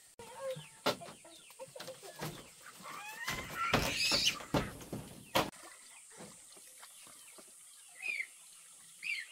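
Chickens clucking and squawking, with a louder burst of calls in the middle, among scattered sharp knocks.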